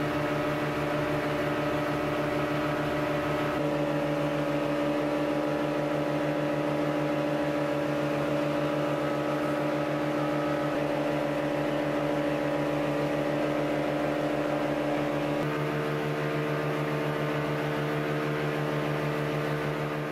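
Boat engine running steadily while the boat is under way, heard from inside the covered cabin as a constant drone.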